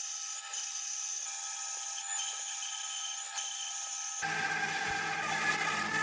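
Bandsaw cutting through a log of very dry, hard hardwood held in a log cutting sled: a steady, high-pitched whine of blade and wheels. About four seconds in the sound changes abruptly to a fuller, lower-reaching run of the saw.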